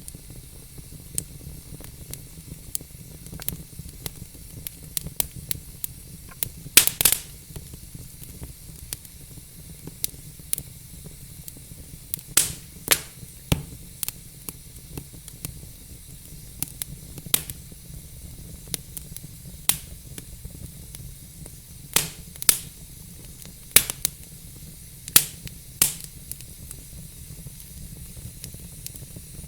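Wood fire burning in a fireplace: a steady low rumble and hiss with irregular sharp crackles and pops from the burning logs, a quick cluster of loud pops about seven seconds in.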